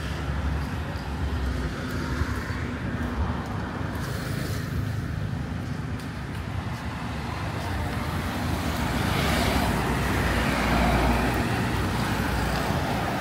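Road traffic: a steady rumble of engines and tyres, swelling about two-thirds of the way through as a vehicle passes close.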